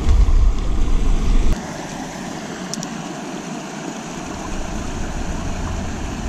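Water rushing steadily over a small beaver dam in a creek. For the first second and a half a heavy low rumble on the microphone sits under it, then stops suddenly.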